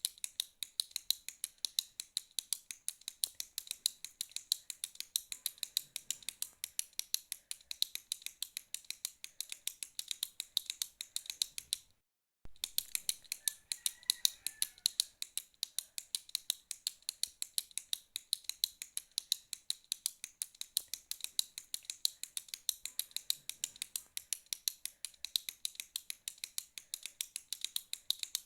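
Retractable pen being clicked over and over in a fast, steady run of sharp, bright clicks, with a brief break about twelve seconds in.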